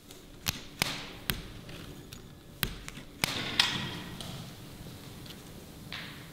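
A series of sharp clicks and knocks at uneven intervals, most of them in the first four seconds, over a faint steady low hum.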